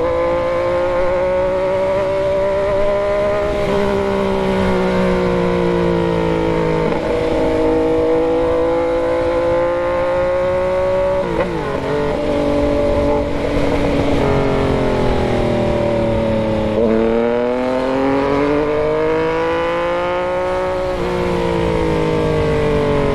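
Yamaha MT-09's three-cylinder engine running under way. Its note climbs slowly and drops back several times.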